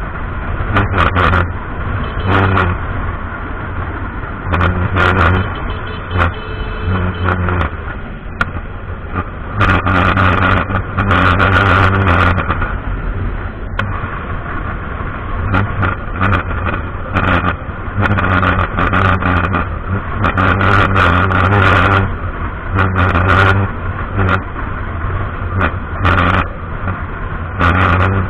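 Motorcycle engine running at highway speed under a constant rush of wind noise. The engine drone swells and eases every few seconds with the throttle, and short knocks and buffets are scattered through it.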